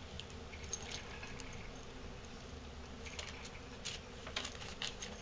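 A dog mouthing and play-biting a pet groundhog, making soft wet mouth sounds and small scattered clicks that come thicker in the second half, over a low steady hum.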